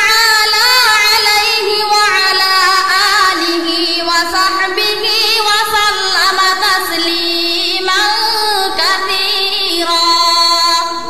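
A woman's voice singing or chanting a slow melodic line of long held notes that waver and bend in pitch.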